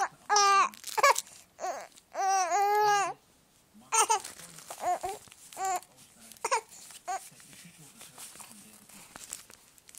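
Young baby cooing and babbling in a string of short high-pitched vocal sounds, with one longer wavering coo a couple of seconds in; the sounds grow sparse and stop in the last couple of seconds.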